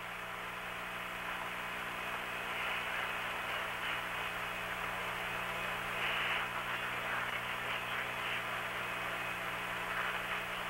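Open radio voice channel with no one talking: steady hiss and static over a low electrical hum, the hiss swelling briefly about six seconds in.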